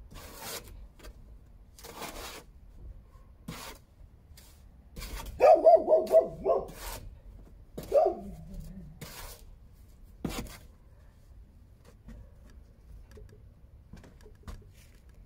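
A dog barking: a quick run of several barks about five seconds in, then a single bark about two seconds later, with a few short sharp clicks between.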